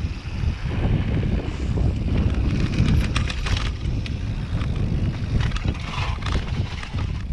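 Downhill mountain bike ridden fast through dirt berms: steady wind buffeting on the action-camera microphone over tyre noise on dirt and gravel, with scattered clicks and knocks from the bike, thickest about three seconds in and again near six seconds.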